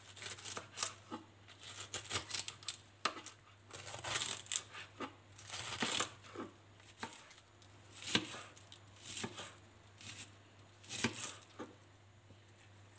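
Kitchen knife shredding a head of white cabbage on a wooden cutting board: irregular crunchy slicing strokes, some in quick runs, that stop about a second before the end.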